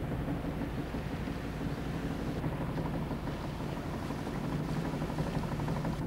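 Boat engine running steadily with a low, even drone, heard from on board.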